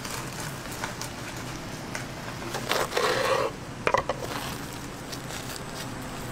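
Crispy breaded crust of a deep-fried croquette crackling and crunching as it is broken open, loudest a little before halfway through, followed by a few sharp cracks.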